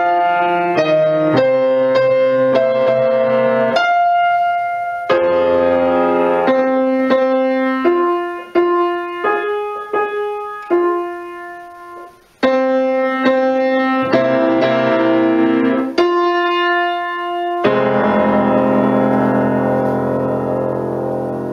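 Solo grand piano playing slow chords, each struck and held, with a short dip in the playing just before twelve seconds in. A last chord struck near eighteen seconds in rings on, slowly fading.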